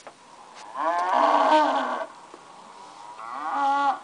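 Recorded animal call played from a laptop's speakers, twice: a long drawn-out call of about a second, then a shorter one near the end.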